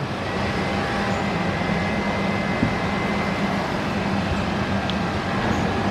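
A steady mechanical hum under an even rushing noise, unchanging throughout.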